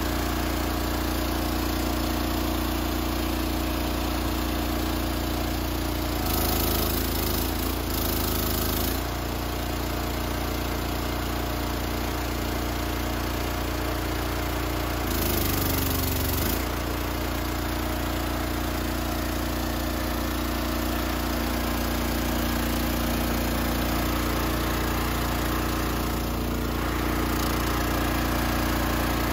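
Small gas engine of an Eastonmade hydraulic log splitter running steadily. Twice, about six seconds in and again about fifteen seconds in, the sound grows louder and harsher for a second or two, then settles back.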